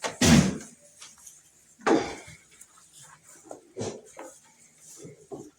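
Scattered metallic clanks and knocks, with three louder ones about two seconds apart, the first just after the start and the loudest.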